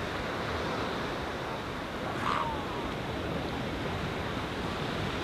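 Steady rush of surf breaking on a beach, with a brief higher-pitched sound a little over two seconds in.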